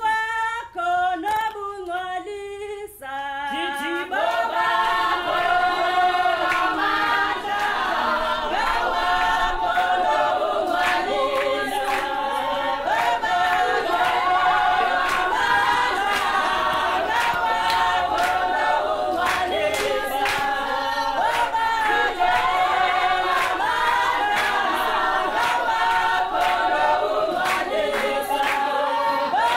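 A choir singing a cappella, many voices in harmony. Only a few voices sing at first, with short gaps; the full choir comes in about four seconds in and carries on steadily.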